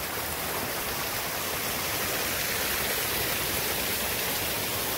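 Small rocky creek rushing and splashing over stones in shallow rapids, a steady close-up water noise.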